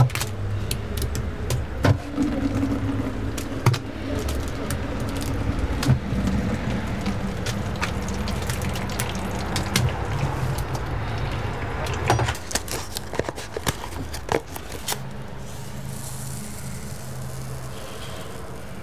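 A metal ladle scraping and clinking against a plastic bucket and a bowl while scooping thick potato pancake batter, in quick irregular knocks over a steady low hum. The knocks die away near the end, leaving the hum.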